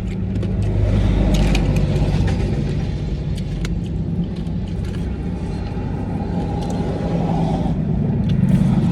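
Steady low rumble like a running car engine, with scattered light clicks and rustles over it.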